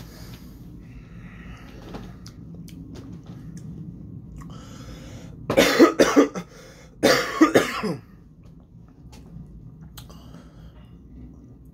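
A man coughing in two fits about half a second apart, each a run of a few quick coughs, with his arm raised over his mouth.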